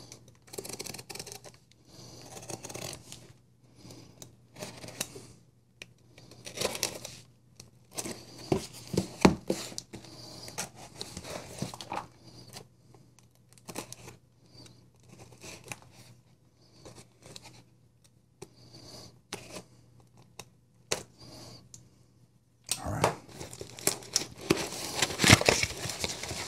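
A folding knife's blade slitting the packing tape on a cardboard mailing box, in short irregular scraping and tearing strokes with pauses between. Near the end the box flaps are pulled open and the bubble-wrap packing crinkles, louder and more continuously.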